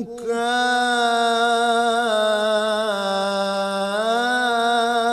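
A man's unaccompanied voice singing a line of Arabic verse in maqam Saba, holding one long note after a quick breath, dipping slightly in pitch and coming back up about four seconds in.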